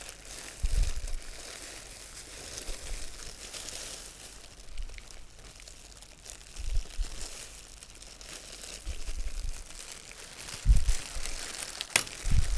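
Thin disposable plastic gloves crinkling and rustling as hands peel and handle bananas, with a few dull thumps.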